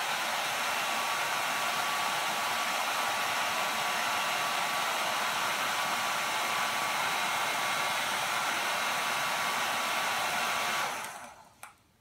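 Handheld hair dryer running on its blower: a steady rush of air with a faint steady whine. It is switched off near the end and winds down.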